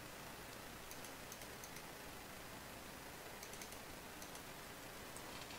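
Low hiss with a few faint, scattered clicks from a computer keyboard and mouse.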